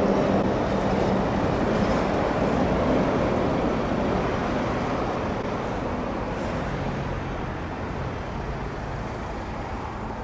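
Steady low rumble of vehicle traffic, slowly growing quieter.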